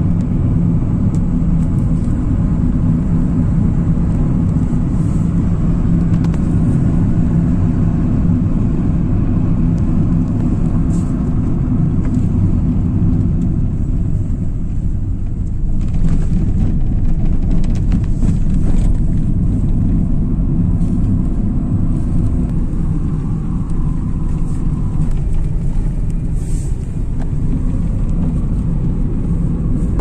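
Car driving on a winding road, heard from inside the cabin: a steady low rumble of engine and tyre noise.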